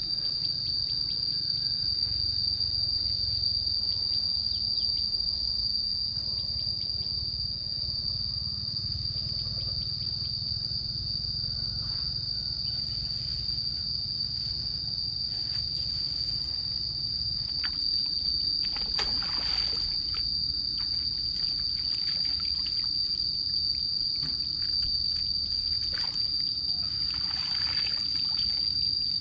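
A steady, high-pitched drone of insects holding one pitch, over a low rumble. Near the end come a few brief splashes of feet wading through shallow muddy water.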